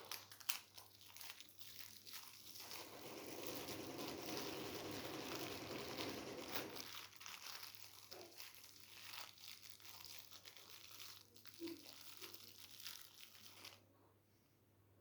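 Faint rustling and crinkling of bedding as a sleeper shifts in bed, with scattered small clicks. The rustling is densest from about three to seven seconds in and dies down near the end.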